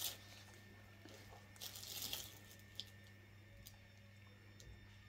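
Near silence over a faint steady hum, with a brief soft rustle about two seconds in and a light click just after, as a pair of slide sandals is handled.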